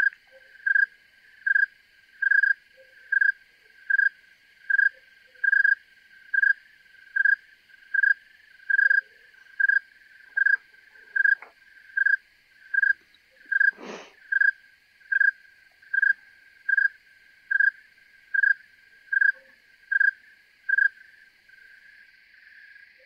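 Snowy tree cricket stridulating, rubbing its raised forewings together: a long, evenly spaced series of clear, high chirps, a little more than one a second, that stops shortly before the end. A single knock about two-thirds of the way through, over a faint background hiss of other insects.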